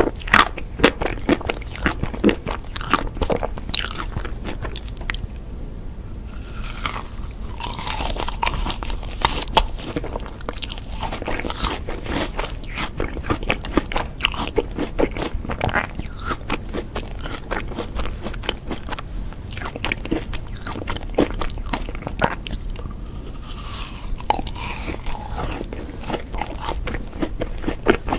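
Ice cream being bitten and chewed close to the microphone, with crunching and wet mouth clicks throughout.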